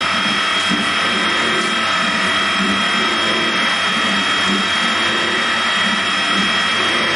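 Intos FNGJ20 tool room milling machine running steadily under power, its motor and gear train giving a constant mechanical whine with several steady high tones over a rough, pulsing hum.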